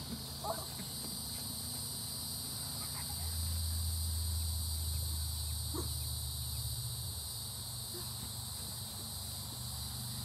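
Steady high-pitched chorus of insects in the trees around a grassy yard, with a low steady hum beneath it that swells for a few seconds in the middle, and a few faint short chirps.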